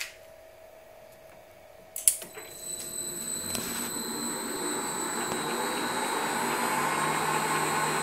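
A click about two seconds in, then the PM1236 lathe's three-phase motor, driven by a Huanyang VFD, starts up in reverse. Its running noise and a steady high whine grow slowly louder as the drive ramps up.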